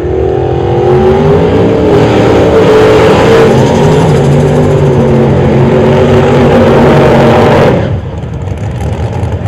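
Drag race car doing a burnout: the engine is brought up to high revs in the first second and held there, with the tires spinning and smoking. It cuts off sharply about eight seconds in, leaving a quieter engine running.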